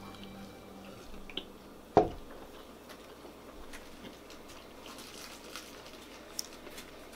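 A plastic cup is set down on a table with one sharp knock about two seconds in, the loudest sound. Around it, a quiet room holds faint squishy noises of a person handling and eating a chicken sandwich.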